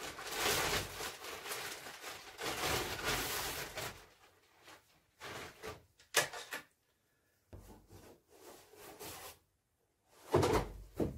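Clear plastic sleeve crinkling and rustling for about four seconds as a rifle is pulled out of it, then scattered handling rustles with one sharp knock. Near the end, a louder scrape and knock as the cardboard shipping box is moved.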